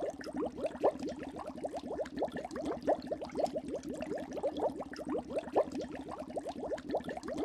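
Water bubbling: a dense, continuous stream of small bubbles popping and gurgling.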